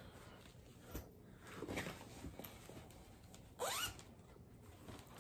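A zipper pulled in short strokes, each a quick rising rasp, the loudest about three and a half seconds in, with a soft click about a second in.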